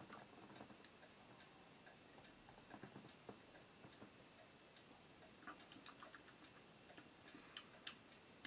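Near silence: room tone with a faint steady hiss and scattered faint clicks.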